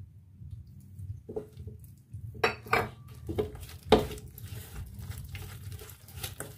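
A hand kneading and mixing wet gram-flour batter in a stainless steel bowl, with several clinks and knocks against the steel; the loudest comes about four seconds in.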